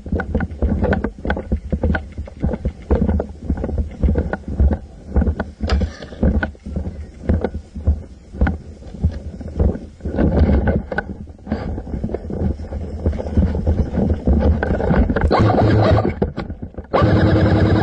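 Rustling, knocking and footstep noise picked up by a camera mounted on an airsoft rifle as the player moves, with a deep rumble of wind and handling on the microphone. Near the end a louder, steady, buzzing sound lasts under a second.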